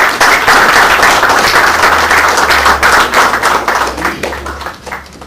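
Applause from a small group of people clapping, thinning out and dying away over the last second.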